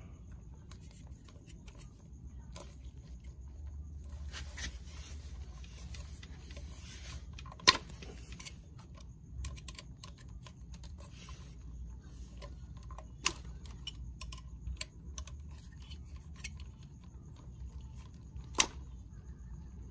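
Light metallic clicks and ticks of an Allen key being worked by hand on the controller's terminal bolts, with a few sharper clicks about 8 s in, 13 s in and near the end, over a low steady hum.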